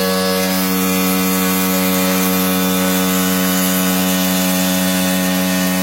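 PowerSmart 208 cc four-stroke gas pressure washer running steadily, a constant engine-and-pump hum over a loud hiss.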